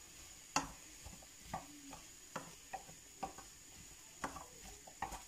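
Wooden spatula stirring diced apples in a frying pan, making a series of irregular light knocks and scrapes against the pan as the apples cook down in butter and sugar.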